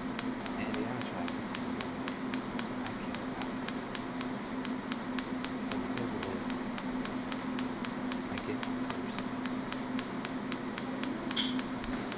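A steady, even run of sharp clicks, about four a second, over a low steady hum.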